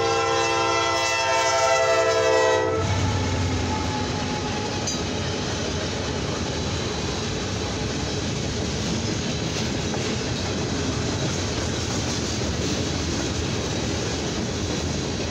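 Norfolk Southern diesel freight locomotive's air horn sounding one held chord for a grade crossing, cutting off about three seconds in. After it, a brief low rumble as the locomotive passes, then the steady noise of a long freight train's cars rolling by on the rails.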